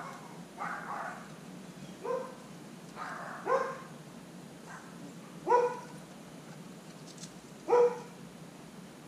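A dog barking in single barks, about four of them roughly two seconds apart, with fainter, rougher calls in between.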